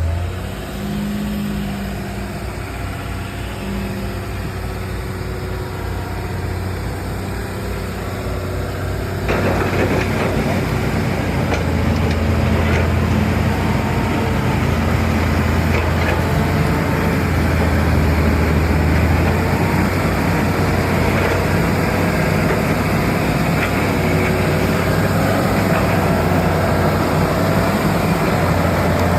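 Logging truck engine running steadily with a low hum; about nine seconds in it turns suddenly louder and rougher and stays that way.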